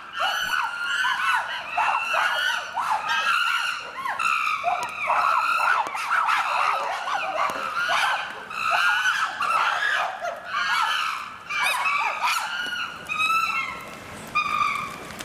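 A group of chimpanzees screaming and calling, many shrill, wavering calls overlapping almost without a break, thinning to a few separate calls near the end. The calling is the sign of a tense, agitated group.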